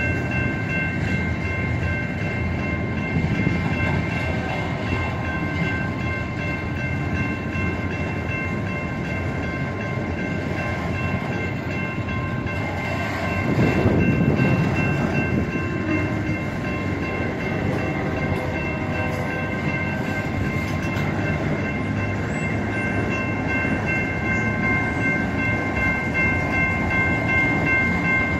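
Union Pacific freight train rolling slowly past, its cars rumbling over the rails with a steady high-pitched squeal over the rumble. The rumble swells briefly about halfway through.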